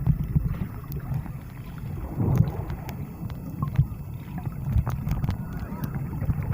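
Wind buffeting the microphone, an uneven low rumble that rises and falls in gusts, with scattered light clicks.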